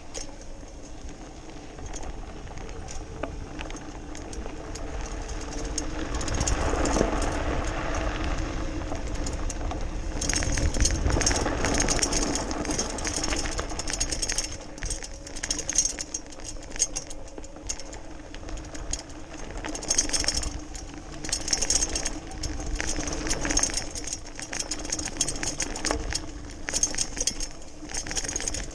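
Electric BMX bike ridden fast over a dirt and gravel trail: a steady electric motor hum under tyre noise, with the bike rattling and clicking over bumps and stones. It gets louder from about six seconds in.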